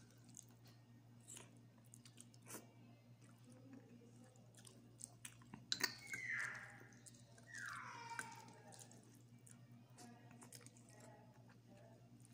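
Quiet chewing of instant noodles, with the sharp clicks of a spoon against a ceramic bowl. Two brief falling whines, about six and eight seconds in, are the loudest sounds.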